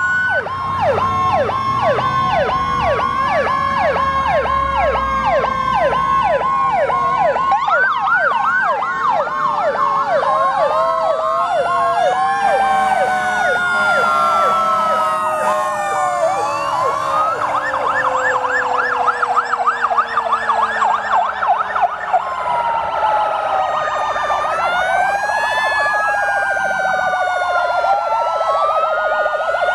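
Several fire apparatus sirens sounding at once as the trucks pass, overlapping fast yelps and slower rising and falling wails. Under them a low tone falls slowly over the first twenty seconds or so.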